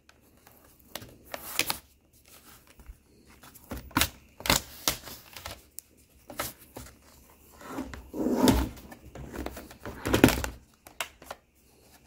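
Plastic pry tools worked around the seam of a ThinkPad T460 laptop's bottom cover: irregular clicks, knocks and snaps of the plastic case and its clips, with scraping and handling in between.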